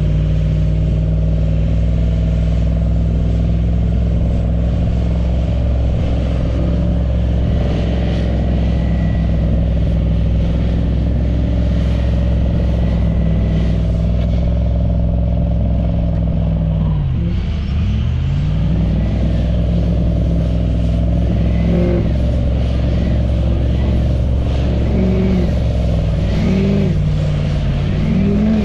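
Vehicle engine running steadily under load while towing a stuck pickup through soft sand on a recovery strap. A little past halfway the revs drop sharply and come back. After that they rise and fall about once a second.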